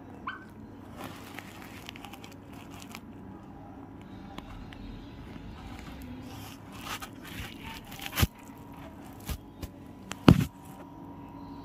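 A parrot moving over a sofa's cloth cushions and blanket: fabric rustling and scraping, with a short squeak near the start and scattered clicks, then two sharp knocks about eight and ten seconds in, the second the loudest.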